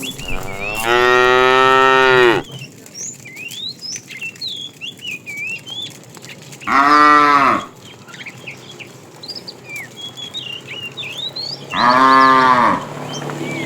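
Cows mooing: one long moo about a second in, then two shorter moos a few seconds apart, with quieter chirping between them.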